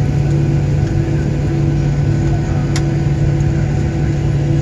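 Steady cabin drone of a Boeing 737-900ER taxiing after landing, with two low hums held throughout. A single sharp click comes about three seconds in.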